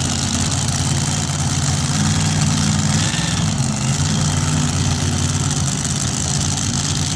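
Supercharged engine of a 2wd mini puller tractor idling steadily at the start of a pull.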